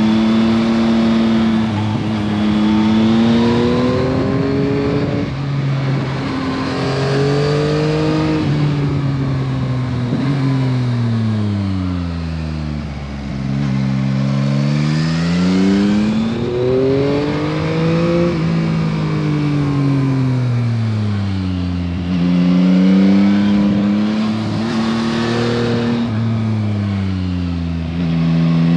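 Yamaha MT-09 SP's 889 cc inline-three engine through its stock exhaust, riding on the road: revs climb and fall again and again with the throttle and gear changes, dropping low about halfway through before climbing again.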